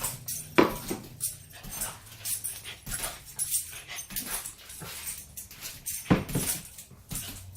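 An excited dog jumping up at feeding time: irregular tapping of paws and claws, with two louder thumps, about half a second in and again near the end.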